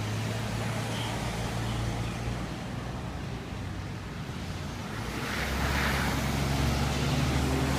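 Vehicles of a slow-moving motorcade, black SUVs, passing close by: a steady low engine hum with tyre and road noise, growing louder about five seconds in.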